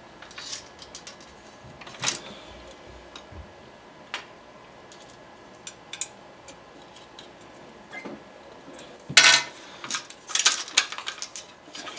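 Scattered small metallic clicks and knocks from handling an AR-15 rifle and fitting the screws of its handguard, with a louder burst of clatter about nine seconds in and more knocks soon after.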